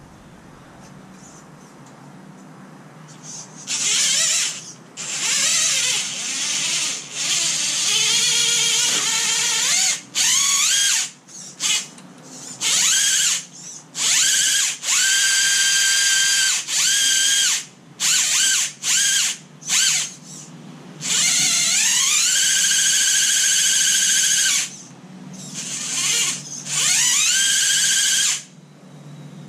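Axial Capra 1.9 RC rock crawler's electric drive motor and geartrain whining in about a dozen throttle bursts, starting a few seconds in. Each burst rises in pitch as the motor spools up, then holds a steady high whine as the crawler drives and climbs.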